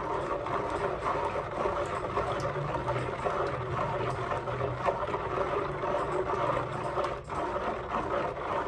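Spatula stirring a bowl of liquid homemade soap mixture of used frying oil and lye with added salt: steady swishing and sloshing of the liquid against the sides of the plastic bowl.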